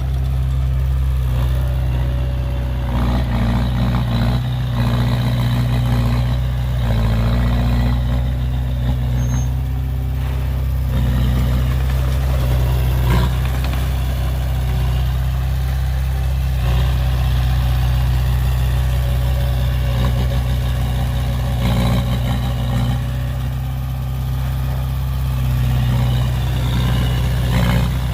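Heavy diesel earthmoving engine running steadily with a deep drone, and a short knock about halfway through.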